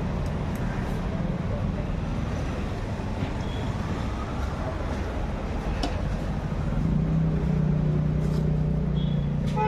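Steady low, engine-like rumble with a few faint knocks; it turns into a louder, steadier low hum about seven seconds in.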